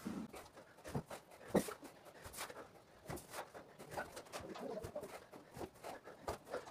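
Hard breathing and short irregular thumps as a man does burpees, his hands landing on bricks and his feet on a stone floor, about one sharp sound every half second to a second.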